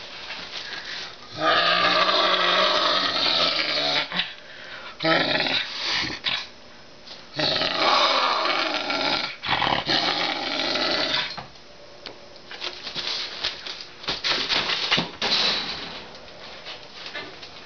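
Canada lynx growling over a raw chicken leg held in its mouth, in long harsh bouts of two to three seconds each, then quieter in the last few seconds. This is food-guarding aggression at feeding time.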